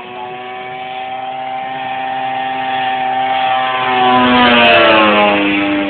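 Engine and homemade propeller of a 28% scale Extra radio-controlled aerobatic plane making a low pass. A steady drone grows louder as the plane approaches and is loudest a little under five seconds in, where its pitch drops as it goes by.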